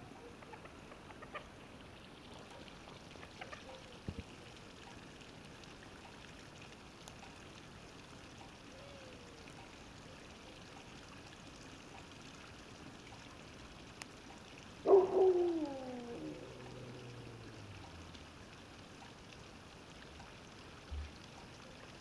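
Faint night background with a few soft clicks, then, about fifteen seconds in, one loud animal call that falls in pitch and lasts about a second and a half.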